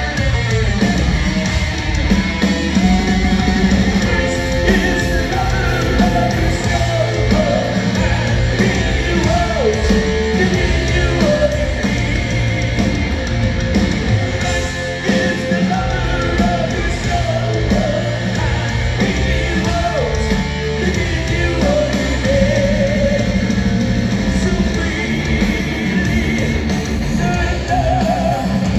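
Live heavy metal band playing loud: distorted electric guitars through Marshall stacks over drums and bass, with a wavering lead line on top, heard from the audience in a large hall.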